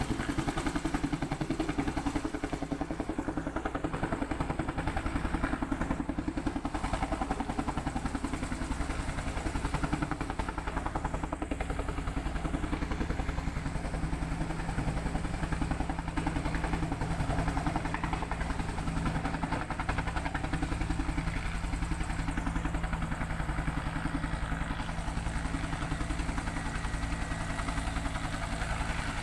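Helicopter running steadily, a fast even rotor beat under a constant engine hum.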